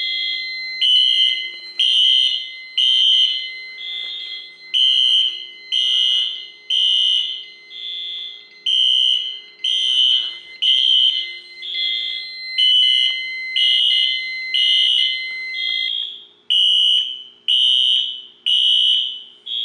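Fire alarm horns sounding in alarm after a manual pull station was pulled on a Unimode 9050UD addressable fire alarm panel. Loud, evenly spaced blasts come about once a second. A steady tone beneath them cuts off about four-fifths of the way through.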